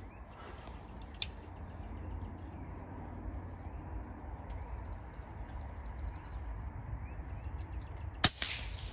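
Quiet outdoor ambience with a bird chirping in a quick series of short downward-sliding notes midway, then a single sharp crack of a field target air rifle shot near the end.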